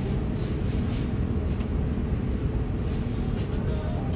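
Steady low cabin rumble of an Airbus A350-900 taxiing after landing: engines at idle and wheels rolling on the taxiway, with a few faint knocks.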